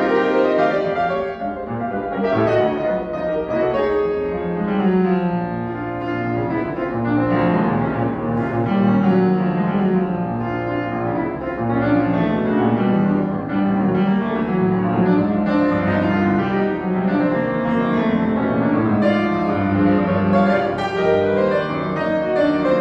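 Grand piano played solo in a classical style: a continuous flow of notes and chords at a steady loudness.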